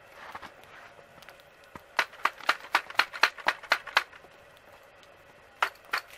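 Sharp clicks and taps from handling a fishing rod and its spinning reel: a quick run of about nine, roughly four a second, then two more near the end.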